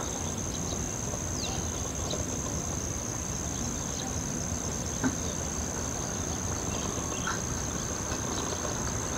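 Steady high-pitched insect drone over a low background rush of outdoor noise, with a few faint chirps and one brief knock about five seconds in.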